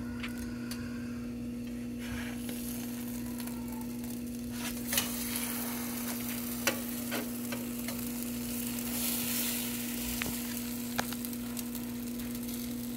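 Pancake batter sizzling on a hot flat-top griddle, with a few sharp clicks and scrapes of a metal slotted spatula against the griddle, the loudest about five seconds in. A steady hum runs underneath.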